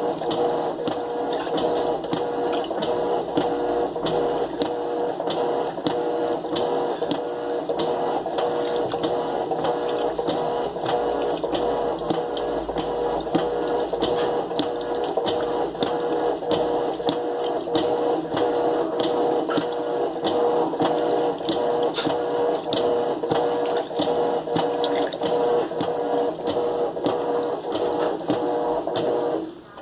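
Electrolux LTE12 top-load washing machine running: a steady motor hum with an even tick about twice a second. It stops just before the end.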